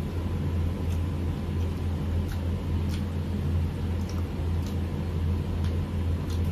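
Steady low hum filling a small room, with a few faint clicks of plates and food handled during a meal.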